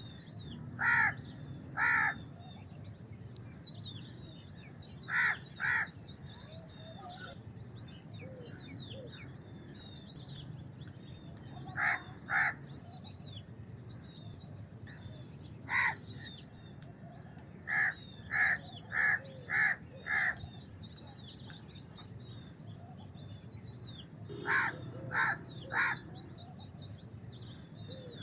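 House crows cawing in short groups of one to five loud caws, about fifteen in all, over continuous high-pitched twittering of smaller birds in the background.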